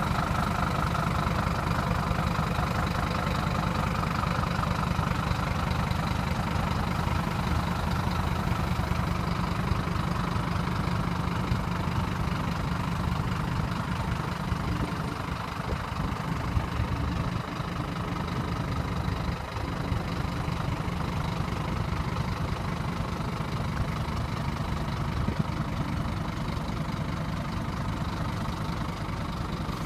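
Scania P230 truck's five-cylinder diesel engine idling steadily, a low even rumble.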